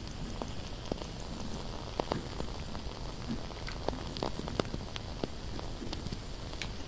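Burning candle crackling: a steady hiss with irregular, sharp little crackles, about ten of them, scattered through it.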